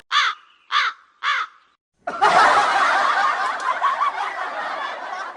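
Three short caws, each rising and falling in pitch, about half a second apart, then a few seconds of dense laughter.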